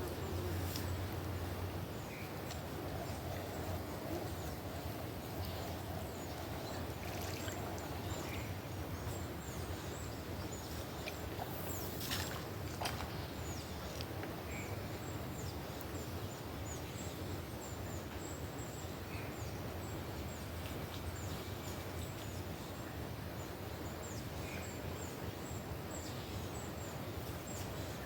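Outdoor ambience beside a swollen river: a steady rush of flowing water, with many short, high chirps throughout and a brief click about twelve seconds in.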